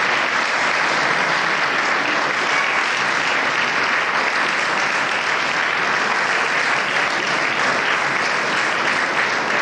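Audience applauding steadily, a dense, unbroken clapping that holds at one level throughout.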